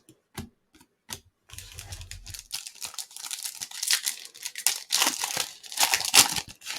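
Foil trading-card pack wrapper being torn open and crinkled, a dense papery crackle that follows a few light clicks in the first second or so.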